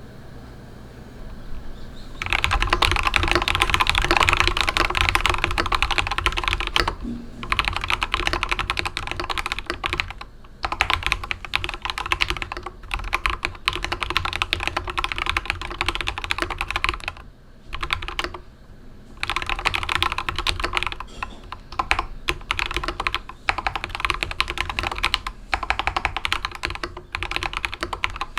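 Fast, continuous typing on a darkFlash GD100 mechanical keyboard with yellow linear switches, a dense stream of key clacks that starts about two seconds in and pauses briefly a few times.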